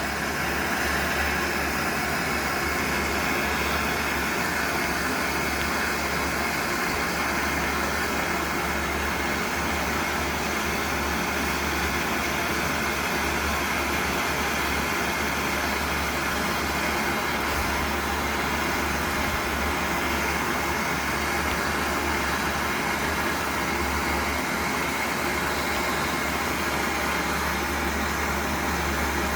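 Gas torch flame burning with a steady hiss and rumble, heating a mild-steel rivet toward red heat for hot riveting.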